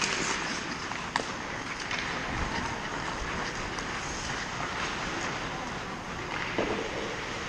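Ice hockey play on an indoor rink: skate blades scraping the ice and a sharp crack of stick on puck about a second in, over a steady hiss of rink noise.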